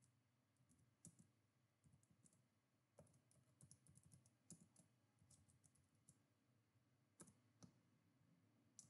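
Faint computer keyboard typing: scattered, irregular key clicks as text is entered.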